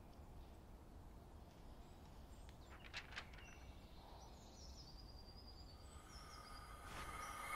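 Faint, quiet forest ambience: a couple of soft clicks about three seconds in and a few faint high bird chirps around the middle. A wash of sound begins to swell near the end.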